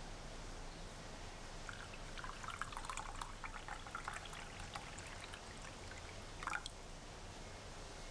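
Water poured from a glass measuring jug into a stainless steel saucepan partly filled with liquid, splashing for about three seconds from roughly two seconds in, then a brief louder splash near the end.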